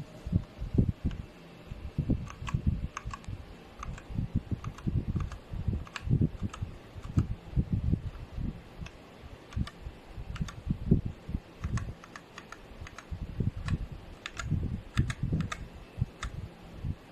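Typing on a Machenike K500 B61 60% mechanical keyboard: irregular keystrokes, several a second, each a low thud with a thin click on top.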